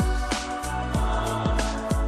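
Background music with a steady beat of deep drum hits, about two a second, over sustained tones.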